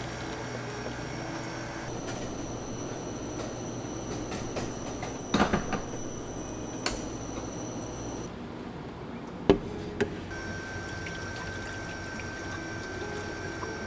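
Cafe counter work sounds: a steady hum of equipment with several clinks and knocks, the loudest a short cluster about five seconds in and a single sharp knock about nine and a half seconds in.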